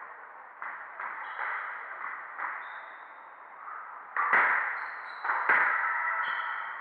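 Squash ball struck hard twice about a second apart, each a sharp crack echoing around the enclosed court, with softer taps and short high squeaks of court shoes on the wooden floor.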